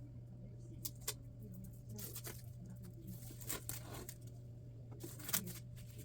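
Fingers picking at and peeling a sticker off the plastic shrink-wrap of a vinyl box set: scattered small scratches, crinkles and clicks, with a steady low hum underneath.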